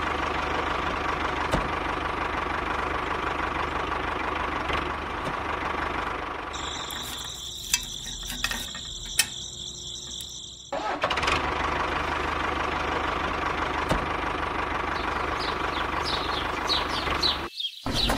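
An engine running steadily, with a knocking, idling character. For about four seconds in the middle it gives way to a quieter stretch with a high steady whine and a few clicks, then runs again and cuts off suddenly just before the end.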